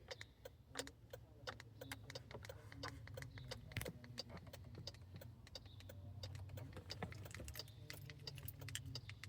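Faint, irregular small clicks and light rattling of a car key fob being handled, over a low steady hum.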